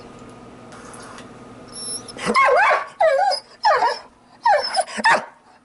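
A dog vocalizing: a run of about five short whining cries with a wavering, bending pitch, starting about two seconds in.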